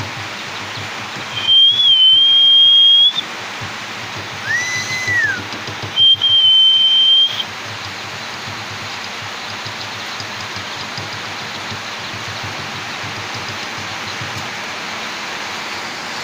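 Two long, steady, high whistled notes, each about a second and a half, with a shorter whistle between them that rises and then falls. All of it sits over a steady hiss.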